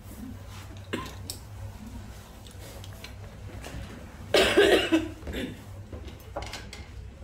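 A woman coughing into her hand while eating noodle soup: one loud burst of coughing a little after four seconds in, followed by a couple of softer coughs or throat-clearing sounds.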